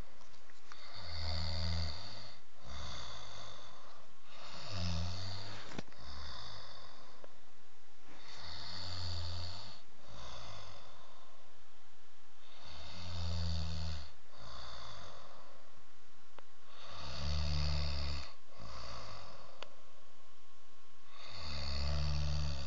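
A person snoring heavily while asleep, in regular rasping cycles about every four seconds.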